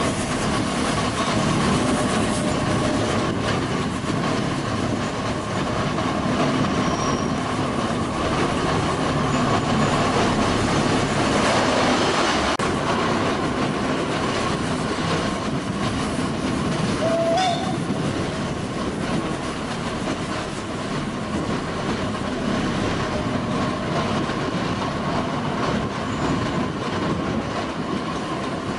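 Steam train running along the track, heard from an open coach window: the steady noise of the coaches' wheels on the rails, with a thin, high wheel squeal on the curve.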